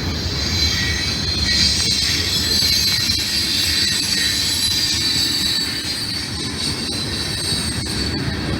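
Freight train rolling past with a low rumble while its wheels squeal in a steady high pitch, with faint clicks from the rails.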